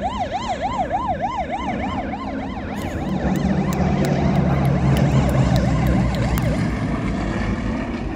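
An emergency-vehicle siren sounding in a fast up-and-down yelp, about four sweeps a second, fading over the first few seconds. Meanwhile a car engine grows louder and is loudest around the middle, with a scatter of sharp clicks.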